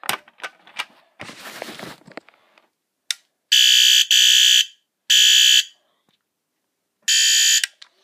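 Battery-powered fire alarm horn sounding in short buzzing blasts about half a second each, four times in an uneven rhythm with the first two nearly joined, after a few handling clicks and a rustle. The horn sounding shows that the hand-wired alarm circuit works.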